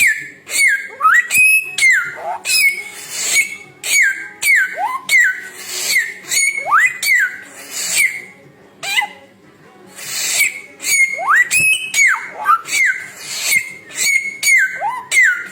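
Samyong songbird singing a fast run of loud whistled notes, many sliding down or up in pitch, mixed with sharp chips, with a short pause about halfway through.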